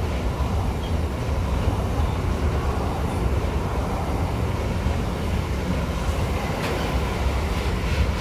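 Container freight train of flat wagons loaded with shipping containers rolling past close by: a steady rumble of wheels on the rails, with a few light clicks near the end.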